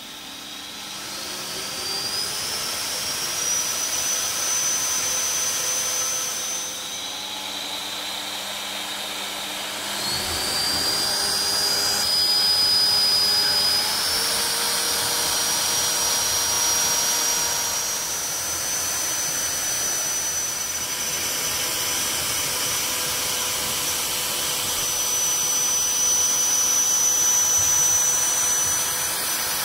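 Sona SVC 7051 water filtration vacuum cleaner's motor running with a high whine. The whine climbs in pitch as the motor spins up over the first few seconds, dips, climbs again about ten seconds in, and then holds steady.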